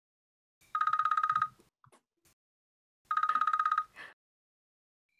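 Electronic telephone ringer trilling in two short, identical rings about two and a half seconds apart, a rapidly warbling high tone.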